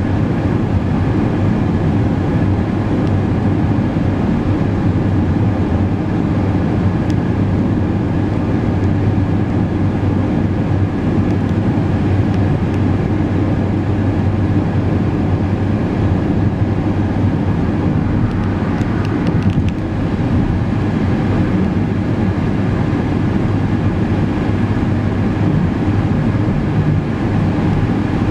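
Steady low drone of a car driving at highway speed: engine, tyre and road noise.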